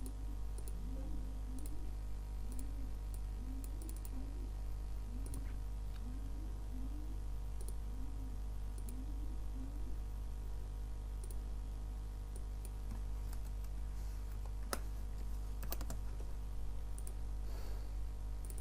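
Scattered computer mouse clicks and keyboard keystrokes, over a steady low electrical hum.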